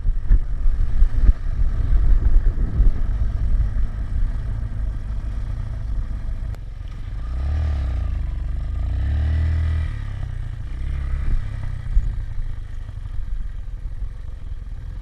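Bajaj Pulsar NS200's single-cylinder engine running under way, heard through heavy wind buffeting on a body-mounted camera. About halfway through, the engine note rises and falls twice.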